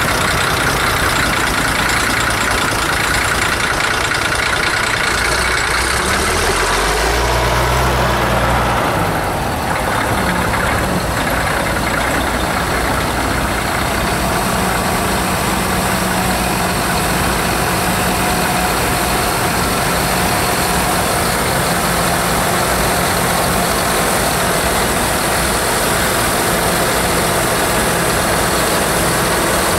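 Tractor diesel engines running as tractors drive past on a dirt track, with one engine note rising briefly about seven seconds in; in the second half a large Valtra tractor carrying a timber crane passes close by with a steady low hum.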